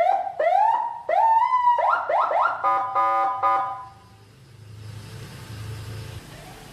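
Senken CJB100BD electronic siren cycling through its tones. First comes a series of rising whoops, then quicker chirps, then a pulsing horn-like blast that stops about four seconds in. After that only a low hum remains, with faint whoops starting again near the end.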